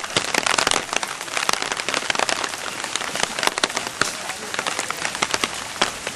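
Steady rain falling, with many sharp, close drop hits sounding as quick clicks through it.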